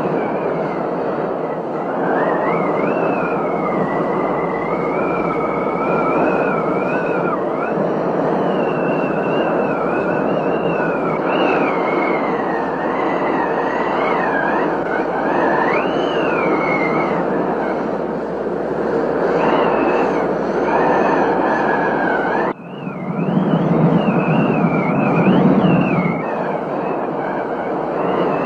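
Heavy rain pouring steadily, with a thin whistling tone wavering up and down over it. About three-quarters of the way through the sound drops out for an instant, then a low rumble swells for a few seconds.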